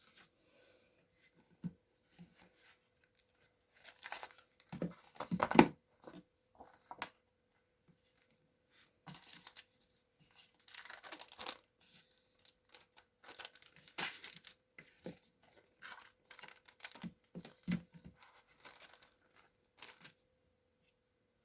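Paper or plastic packaging being handled, rustling and tearing in irregular bursts, loudest about five seconds in, over a faint steady hum.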